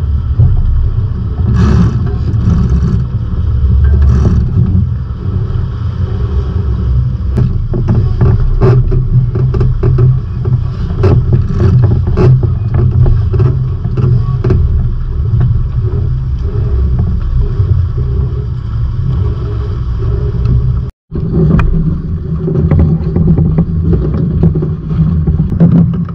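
Sailing trimaran under way: wind buffeting the action camera's microphone as a deep, steady noise, mixed with water rushing past the hulls, and scattered clicks and knocks from the boat. The sound briefly cuts out about three-quarters of the way through.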